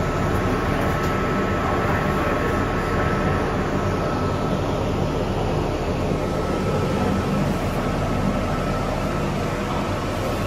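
Steady machinery hum and rushing noise in a train maintenance shed, with a thin constant whine over it and no change throughout.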